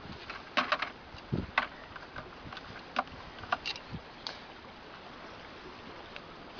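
Scattered clicks and taps of a Dungeness crab's shell and legs being handled and held against a crab gauge, loudest in a quick cluster just over half a second in, with one low thump about a second and a half in. Under them runs a steady background hiss.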